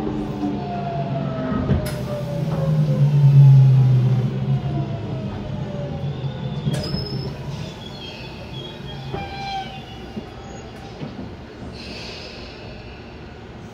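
Tobu 100 series Spacia's Hitachi GTO-VVVF inverter and traction motors whining in several tones that fall steadily in pitch as the train brakes into the station, loudest a few seconds in. The whine then fades to a quieter running rumble with brief high wheel or brake squeals.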